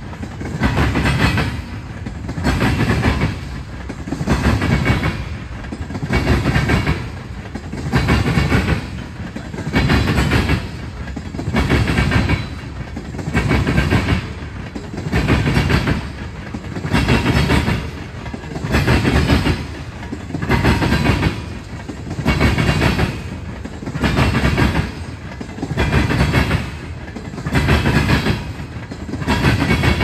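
Tank cars of a Norfolk Southern freight train rolling past, their wheels clacking on the rails in a loud, regular swell about every two seconds.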